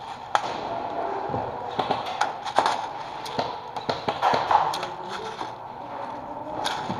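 Irregular sharp taps and knocks, most of them bunched between about two and five seconds in, over a steady background hiss.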